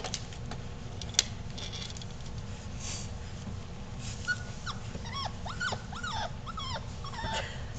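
Five-week-old bullmastiff puppies whimpering: a run of short, high whines that rise and fall, starting about halfway through, after a single sharp click about a second in.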